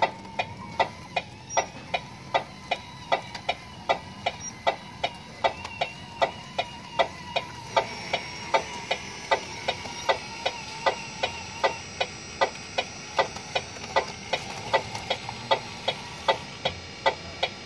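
1:14-scale RC hydraulic excavator working: a thin electric whine from its pump and drive motors, shifting in pitch as it moves, under a steady, even ticking about two and a half times a second.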